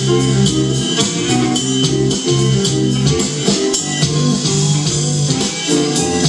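Small live rock band playing: guitars and bass guitar over a drum kit, with steady cymbal strokes keeping the beat.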